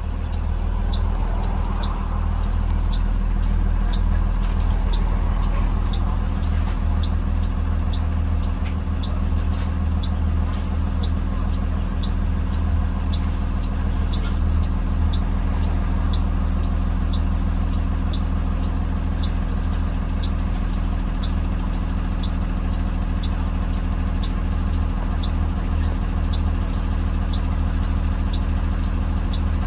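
Blue Bird Vision school bus under way, heard from inside: a steady low engine drone with a light, even ticking about twice a second.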